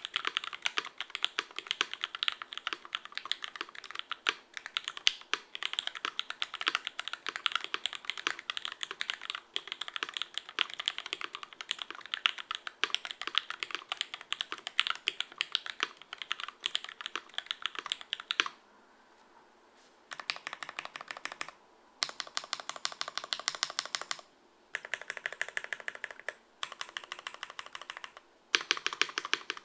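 Fast typing on a custom Ogre mechanical keyboard with lubed vintage Cherry MX Black linear switches, an aluminum full plate, no foam and JTK tripleshot keycaps: a continuous stream of keystrokes for most of the time, then breaking into short runs with brief pauses in the last third.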